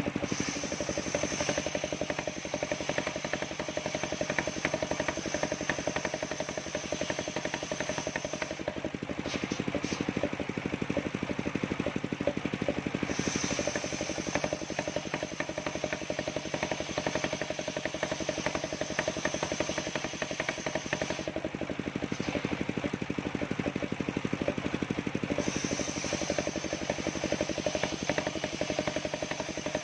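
Engine-driven portable circular-saw sawmill running steadily while sawing a hard coconut palm trunk. Its engine runs at an even speed throughout, and a high steady whine comes and goes in three long spells.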